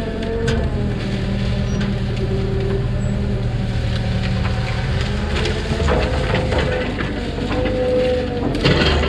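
Mini excavator's diesel engine running with its hydraulics working under load, the pitch shifting as the boom moves, with short knocks and cracks from brush and wood now and then.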